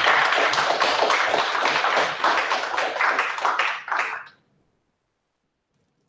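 Audience applauding, a dense patter of many hands clapping at once that ends about four seconds in.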